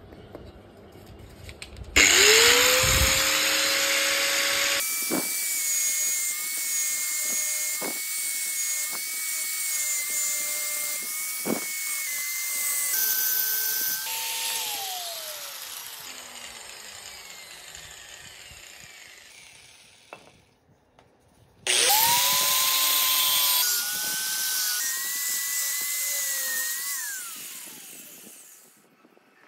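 Small electric rotary grinder run twice: each time it starts with a quick rise to a steady whine, shifts pitch in steps, then winds down with a falling pitch and fades. There is a brief near-silent gap between the two runs.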